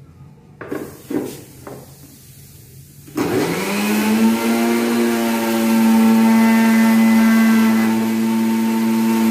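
Electric mixer grinder (mixie) with a small steel jar: a few knocks as the jar is set on the base, then about three seconds in the motor starts, spins up and runs at a steady high hum. It is churning water with the leftover semolina paste to rinse the jar out.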